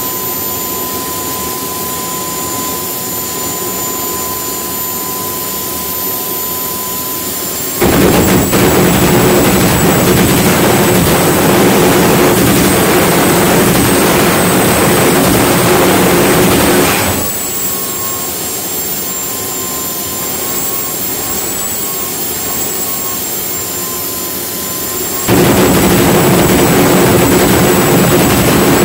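Homemade gas turbine jet engine on a mobility scooter running steadily with a high whine. About eight seconds in the afterburner lights and the sound jumps suddenly to a much louder rushing noise, which holds for about nine seconds before dropping back to the whine. It lights again about 25 seconds in and cuts off right at the end.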